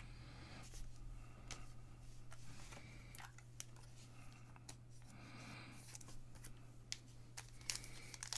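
Faint handling noise: scattered light clicks and scrapes of fingers on plastic-sleeved trading cards, over a steady low electrical hum.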